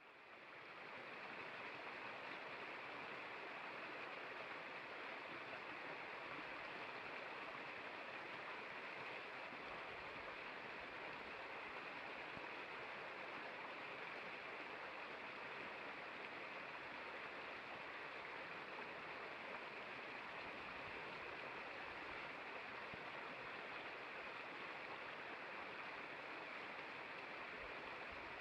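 Shallow rocky creek flowing, a steady rush of water over a small riffle, fading in at the start.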